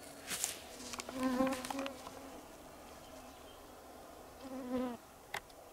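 A flying insect buzzing past the microphone twice: a longer pass about a second in and a shorter one near the end. A brief rustle comes near the start and a sharp click near the end.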